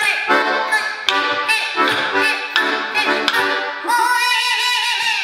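Diatonic accordion played in short, punchy chords about twice a second, then a long held tone with a wavering pitch starting about four seconds in.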